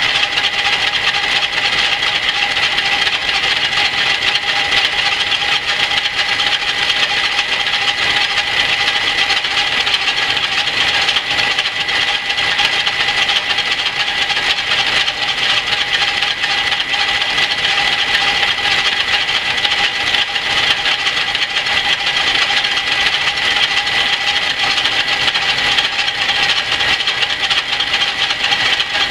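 Antique Rockford metal lathe running under power feed, its cutting tool facing a steel plate spinning in the chuck. The noise is steady, with a constant whine through it.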